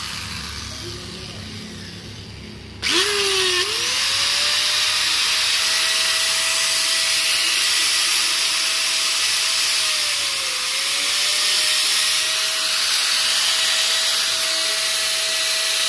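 DeWalt DWE4120 900-watt angle grinder switched on about three seconds in: the motor spins up with a rising whine, then runs steadily at no load, its pitch sagging briefly about two-thirds of the way through. This is its first run on a freshly rewound armature, with the light brush sparking that is normal until the commutator beds in under load.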